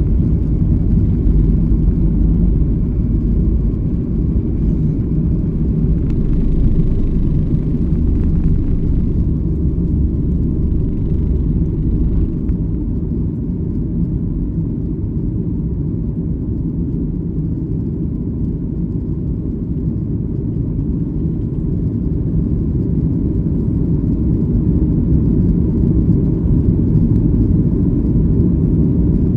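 Steady low rumble of a Boeing 737 MAX 8 airliner heard from inside the passenger cabin: the constant drone of the jet engines and airflow.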